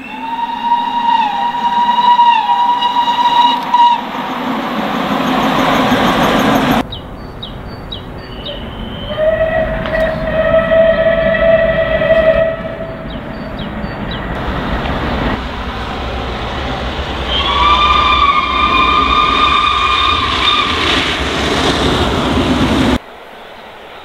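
Three steam locomotive whistles in turn, each a blast of three to four seconds: the first mid-pitched with a couple of brief dips, the second lower, the third higher. Between them is the rumble of a passing train, and the sound changes suddenly where one recording is cut to the next.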